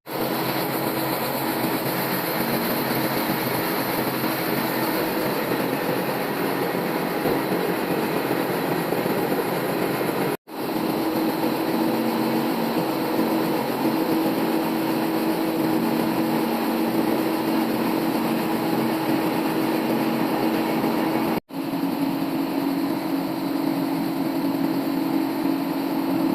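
Old bandsaw sawmill running steadily as its blade rips a log lengthwise into a slab, a steady motor hum under the noise of the blade in the wood. The sound breaks off sharply for an instant twice.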